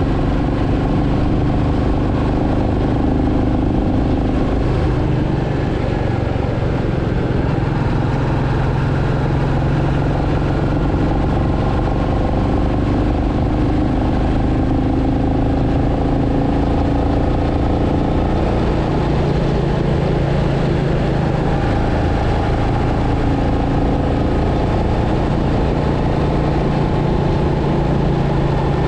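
Royal Enfield Meteor 350's single-cylinder engine and exhaust running steadily at cruising speed, the pitch drifting a little up and down with small throttle changes. A steady rush of wind and road noise runs under it.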